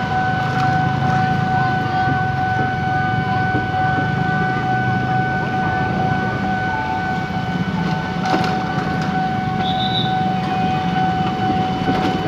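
Railroad crossing warning alarm sounding one steady, unbroken tone, over the low noise of waiting motorcycle engines.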